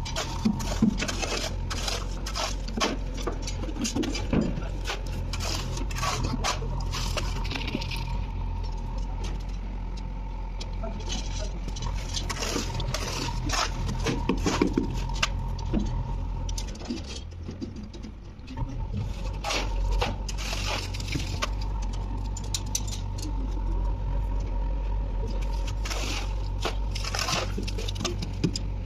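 Shovels and tools scraping and clinking on wet concrete and steel rebar, many short sharp scrapes and knocks, over a steady low machine hum with a thin steady whine.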